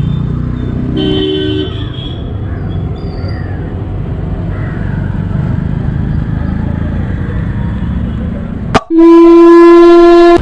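Street traffic rumbling, with a short vehicle horn toot about a second in. Near the end a loud, steady tone with overtones cuts in abruptly after a click and holds for over a second.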